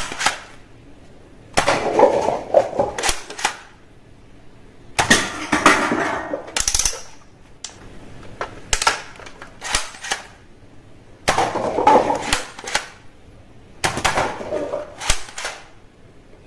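Plastic toy guns clicking and clattering as they are handled, in bursts of sharp clicks and rattles about every three seconds.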